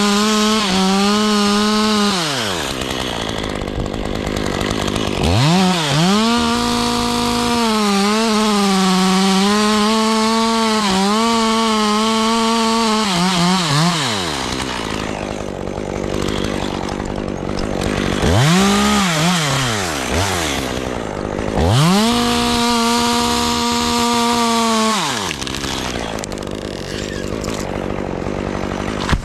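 A two-stroke chainsaw being revved and held at full throttle in several runs. The first is a long run with small dips in pitch, the second a brief blip, and the third another sustained run. The engine note drops away between them, leaving rougher, lower running.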